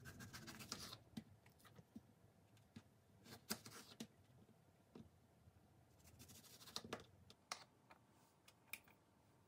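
Kitchen knife cutting strawberries on a cutting board: faint, irregular taps and clicks as the blade goes through the fruit and meets the board.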